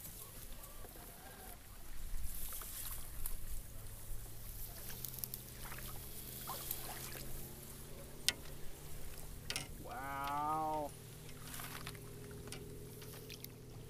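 Kayak being pushed with its paddle through flooded marsh grass: the paddle working in the shallow water and grass brushing along the hull, with scattered clicks and knocks. About ten seconds in comes a wavering call lasting about a second, like a distant voice.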